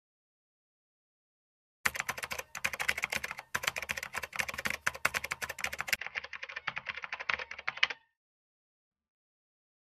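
Typing sound effect: a fast, unbroken run of keyboard key clicks starting about two seconds in and stopping about eight seconds in, sounding duller for its last two seconds.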